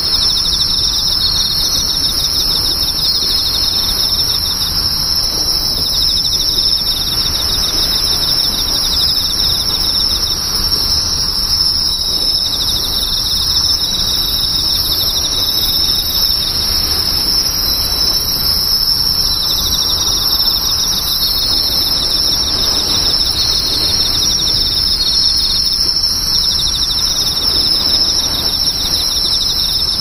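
Chorus of insects making a continuous, steady high-pitched trilling, typical of crickets.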